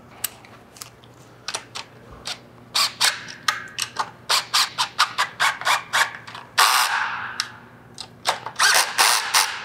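Metal clicks and taps from hand tools and parts as a cam chain tensioner and its cover are fitted and the nuts run down, irregular at first and then about three or four a second, with a short scrape about two-thirds of the way through.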